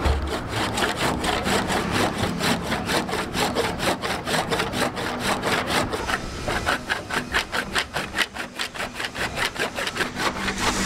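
Handsaw cutting by hand through thick keel timber in quick, even back-and-forth strokes, about four to five a second, finishing a corner cut that a circular saw could not reach.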